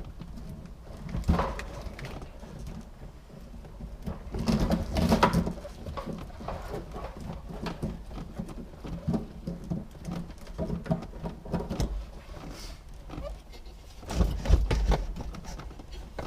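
Car wiring harness and its plugs being worked through the firewall hole by hand: irregular rubbing, rustling and light knocks, with louder spells of handling about a second in, around five seconds in and near the end.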